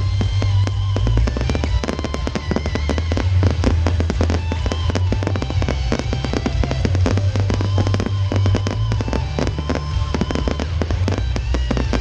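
Fireworks display: a dense run of bangs and crackles from bursting shells, with music playing alongside.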